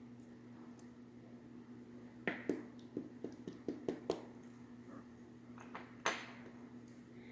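Small metal lock parts (pins from a disassembled dimple lock) clicking and tapping as they are handled: a scattering of light clicks about two to four seconds in and one sharper click about six seconds in, over a faint steady hum.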